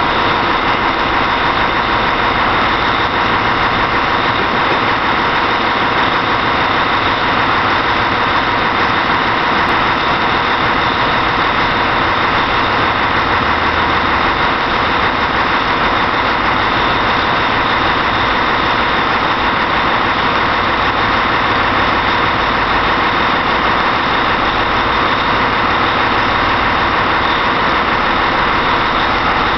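Volvo truck diesel engine idling steadily, heard up close.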